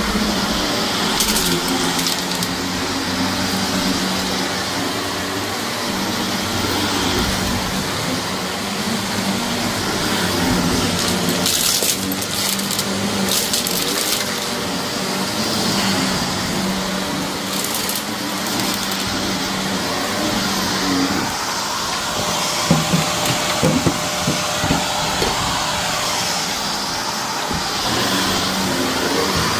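Shark vacuum cleaner running over a dirty carpet, its motor humming steadily while grit and debris crunch and crackle as they are sucked up, with a flurry of sharper crackles about two-thirds of the way in.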